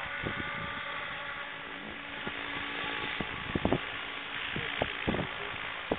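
Electric scale model helicopter hovering, its motor and main rotor giving a steady whine over the hiss of the rotor wash. Low thumps of wind buffeting the microphone break in several times.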